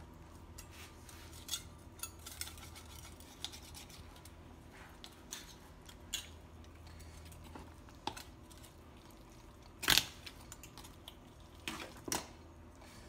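Knife and carving fork working through a roast chicken on a cutting board: scattered light clicks and scrapes of metal on the board and the bird, with one sharper knock about ten seconds in.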